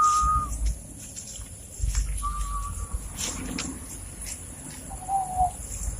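A person whistling single held notes. A long steady note ends just after the start, a shorter one comes about two seconds in, and a lower note falls slightly near the end. A low rumble sits under it at the start and again about two seconds in.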